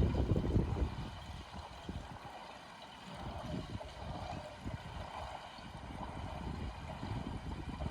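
Small waves lapping and sloshing irregularly against the edge of ice on a partially frozen lake. A louder surge of water fades out in the first second.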